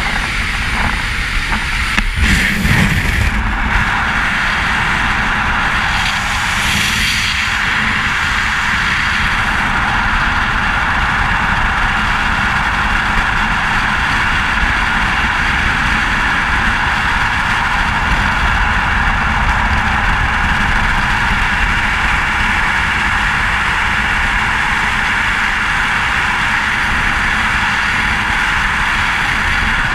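Wind rushing over a skydiving camera's microphone during freefall: a loud, steady rush of air, more unsettled in the first few seconds as the jumpers leave the aircraft door.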